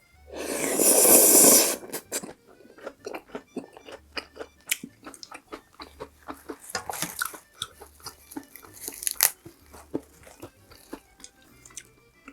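Close-miked eating: a loud noisy rush of about a second and a half near the start, then steady chewing of cheese dakgalbi, spicy chicken with cabbage, full of short wet crunches and clicks.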